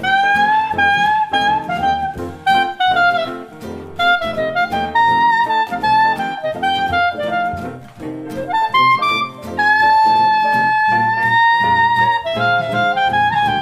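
Background music: a solo melody line of sliding and held notes over a bass accompaniment, with one long held note from about ten seconds in.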